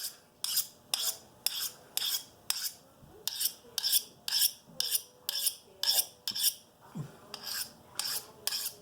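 Knife blade drawn quickly along a sharpening rod in short, even scraping strokes, about two a second, as the edge is sharpened freehand.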